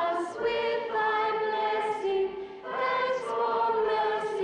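A choir of girls' voices singing long held notes, with a short break a little past halfway before the next phrase starts.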